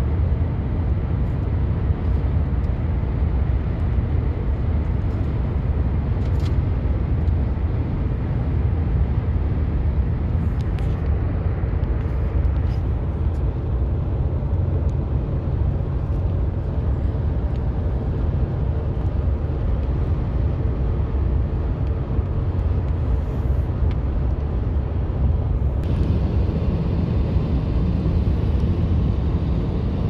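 Steady low road and engine rumble heard inside a moving car.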